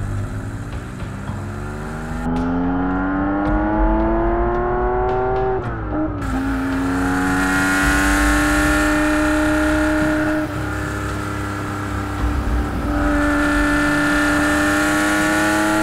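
The air-cooled 2.2-litre flat-six of a 1970 Porsche 911T, driven hard. The engine note climbs steadily for about six seconds, drops sharply as at an upshift, then pulls on slowly rising in the higher gear, easing off briefly twice.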